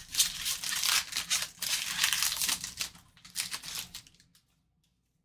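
Plastic trading-card pack wrapper being torn open and crinkled in uneven bursts, stopping about four seconds in.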